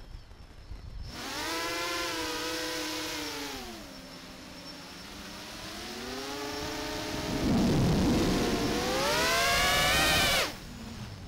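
Electric motors and propellers of an X8 octocopter FPV cinelifter whining, the pitch rising and falling with the throttle. It is nearly silent at first, spools up about a second in, sags, then climbs to a high whine before cutting off suddenly near the end. A low rush of air comes in about two-thirds of the way through.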